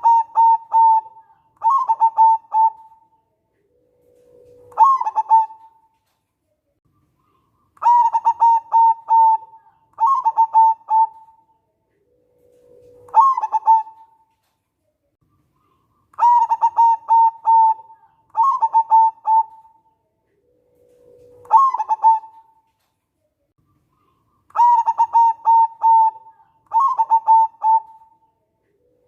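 Local zebra dove (perkutut) singing its cooing song: a low held note that jumps up into a rapid trilled coo, then runs of trilled, bubbling coos, the phrase repeating about every eight seconds.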